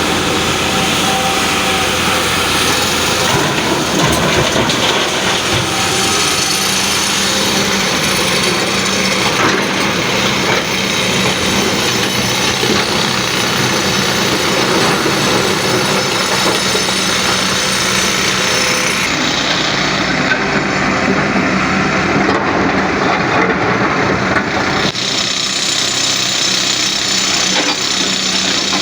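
LiuGong excavator's diesel engine running steadily under working load, with a constant hum and mechanical clatter over it.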